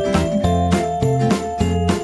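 Upbeat background music with a steady beat, jingling bell-like percussion and a bass line under a simple melody.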